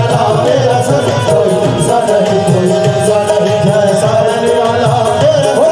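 Qawwali music: harmonium playing a held, wavering melody over a driving tabla rhythm.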